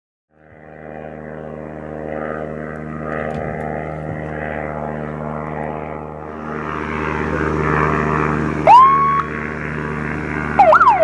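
Light propeller aircraft's engine droning, growing louder over several seconds. About two-thirds of the way in, an alarm siren rises sharply to a steady tone and cuts off after half a second. Near the end the siren starts again in a fast up-and-down wail, the field-demonstration alarm that the detection system sounds on detecting the aircraft.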